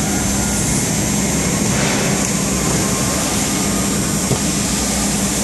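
Steady running noise of freight conveyor belts and warehouse machinery: a constant even hum with a low drone.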